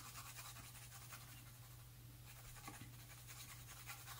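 Faint scratching of a Derwent Lightfast coloured pencil on paper, in quick, light back-and-forth strokes as colour is laid down, over a low steady hum.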